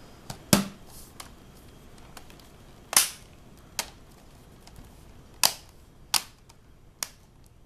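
Plastic snap clips of the Dell Studio 1558's upper keyboard cover clicking into place as the strip is pressed down along its length. About eight sharp clicks at uneven intervals, the loudest about half a second and three seconds in.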